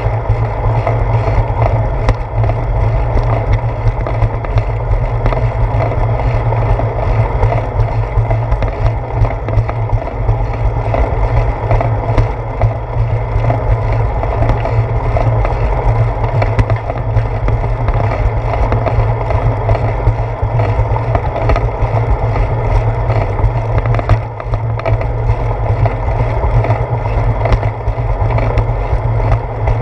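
Bicycle riding along a concrete sidewalk: steady, loud rumble of the tyres rolling over the pavement, with many small knocks and rattles as it goes.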